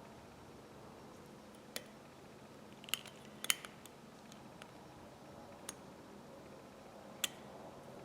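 Scattered light metallic clicks and taps, about seven in all and the loudest about three and a half seconds in, as a screwdriver and the parts of a 10-inch Ridgid pipe wrench knock together while the spring is pressed down and the clip worked into its slot. A faint steady hum sits underneath.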